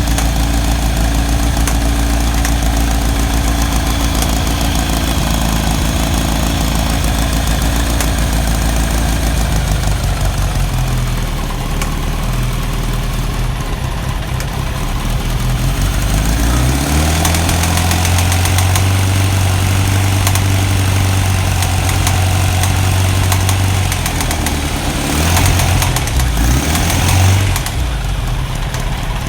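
1991 Kawasaki ZZR1100's inline-four engine running at idle, then revved up and held at a higher steady speed from about halfway through, with a few quick blips near the end before it drops back. The owner cannot name a noise it makes while running.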